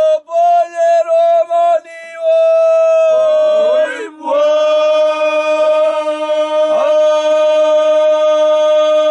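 Background music: a few short notes, then long held notes over a steady lower drone, with quick swooping flicks of pitch between them.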